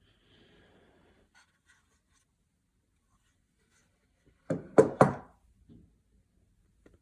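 Faint rustling, then three sharp knocks in quick succession a little past halfway, followed by a softer one: handling noise of objects being set down or bumped.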